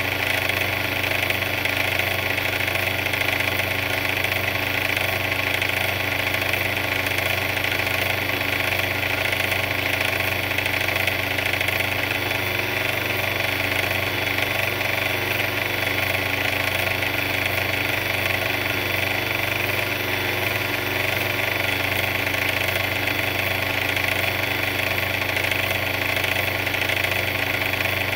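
Mixer running steadily, its motor giving a constant, unchanging drone.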